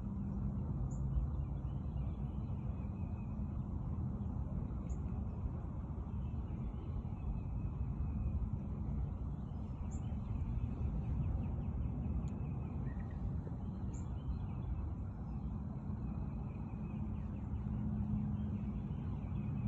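Steady low rumble with faint birdsong above it, and a short high-pitched chirp repeating about every four to five seconds.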